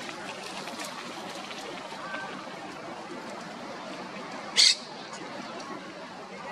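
Monk parakeet giving a single short, harsh squawk about four and a half seconds in, over steady outdoor background noise, with a few faint chirps around it.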